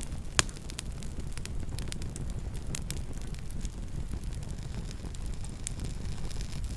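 Campfire burning: a steady low rumble of the flames with frequent small crackles and one sharp, loud pop about half a second in.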